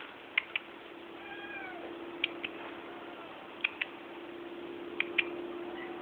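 Stray cats meowing faintly, a few short arching mews. Sharp paired clicks come about every second and a half over a steady low hum.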